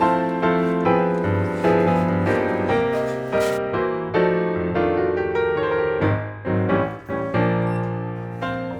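Background piano music with notes struck in a steady rhythm, fading out at the end.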